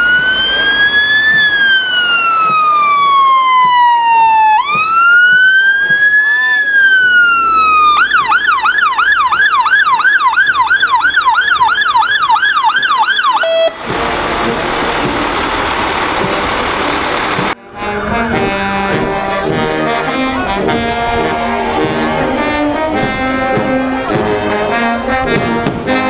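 Fire engine siren sounding a slow wail that rises and falls twice, then switching to a fast yelp of about three cycles a second. It cuts off into a few seconds of steady noise. After a sudden break, a brass band plays.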